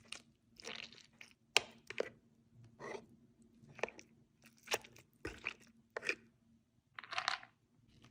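Defrosted raw dog-food patty being smashed down into the grooves of a plastic slow-feeder bowl: a series of short, irregular scrapes and soft taps, about one or two a second.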